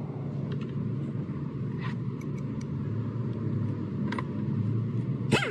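Car engine idling with a steady low hum, a few faint clicks over it and a short sharp sound near the end.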